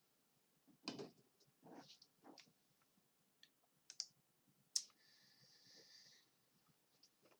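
Near silence: quiet room tone with a few faint scattered clicks and small handling noises, and a soft hiss lasting about a second and a half just after a sharper click about five seconds in.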